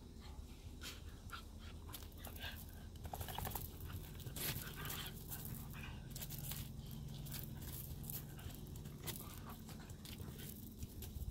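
Two Siberian huskies, an adult and a puppy, play-wrestling on gravel: scattered scuffs and crunches of paws on the gravel and snaps of mouthing, with dog panting. A steady low drone sits underneath from about four seconds in.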